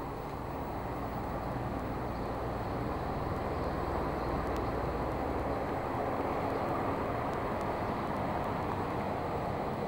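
Steady mechanical hum and rumble of the surrounding buildings and city, heard at the window of a light well lined with air-conditioner units. It swells slightly over the first few seconds, then holds steady.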